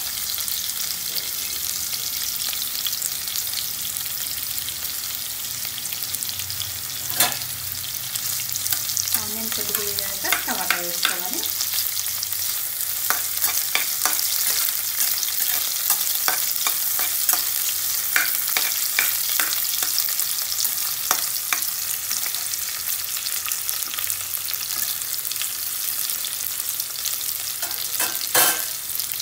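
Sliced onions and green chillies sizzling steadily in hot oil in a nonstick kadai, frying toward brown, with a spatula scraping and clicking against the pan now and then. A sharp knock of the spatula on the pan about seven seconds in and another near the end; a brief wavering tone around ten seconds in.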